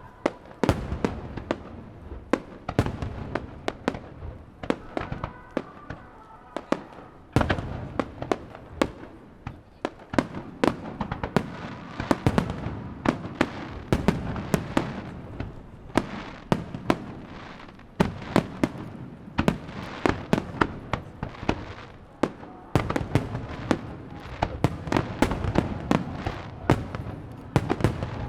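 Fireworks display: aerial shells bursting in quick, overlapping succession, many sharp bangs and crackles a second over a low rumble, growing denser and louder about seven seconds in.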